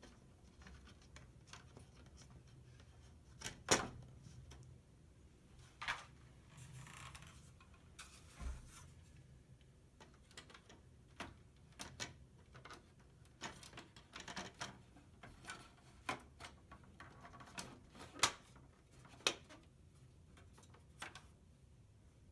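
Faint, irregular clicks and light knocks of a plastic toy tower's parts being handled, with a few sharper clicks a little before four seconds in and around eighteen and nineteen seconds in.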